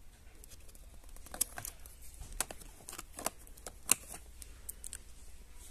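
Light clicks and taps of plastic battery-powered LED candles being handled and set back among their cardboard display boxes, about seven short knocks between one and five seconds in, the sharpest near the end.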